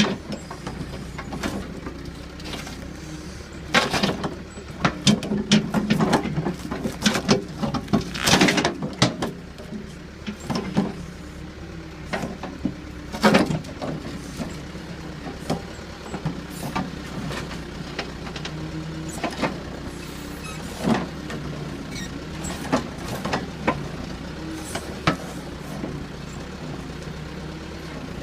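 Backhoe engine running steadily under a string of sharp clanks and knocks, thickest about four to nine seconds in, with single loud ones later.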